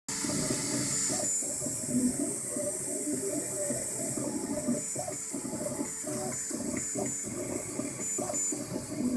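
Ultimaker 2 3D printer printing: its stepper motors whir in short tones that keep changing pitch as the print head moves back and forth, over a steady hiss from its cooling fans.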